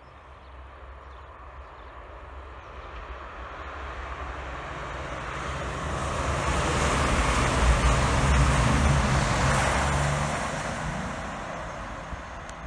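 CrossCountry Voyager diesel multiple unit passing at speed. The drone of its underfloor diesel engines and the rush of its wheels on the rails build steadily as it approaches, peak about eight seconds in as it passes close by, then fade as it runs away.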